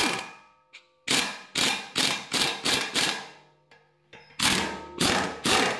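Air impact wrench hammering in short trigger bursts, about six in a row, a pause, then three more near the end. It is running jacking bolts in to press a wedge-mated bushing off the fan's hub.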